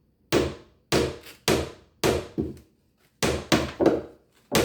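Hammer driving tiny 3-penny finish nails into a wooden stair nosing: about nine sharp taps at an uneven pace, some in quick pairs.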